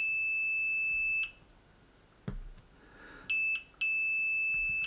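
Multimeter's continuity beeper sounding a steady high tone as its probes are held across a shorted circuit: a beep of about a second, then a short blip and a longer beep near the end, signalling the short is still present. A faint click falls between the beeps.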